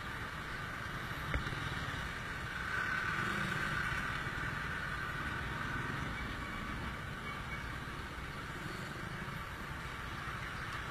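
Motorcycle riding in slow traffic, heard from the bike itself: steady engine and road noise that swells briefly about three seconds in. A single short knock sounds just over a second in.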